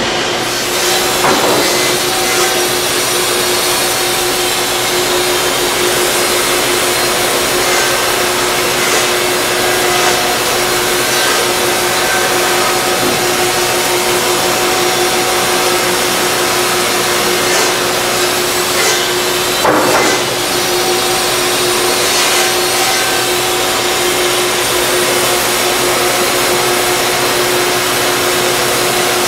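Shop machinery running steadily: a constant airy rush with a steady hum, broken by a couple of knocks, one shortly after the start and one about two-thirds through.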